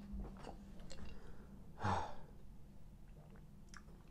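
A man lets out one breathy sigh, about two seconds in, after a drink from a glass jar, with a few faint small clicks before it.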